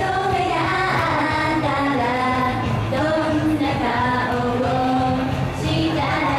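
Female idol group singing a J-pop song live over band music with a steady beat.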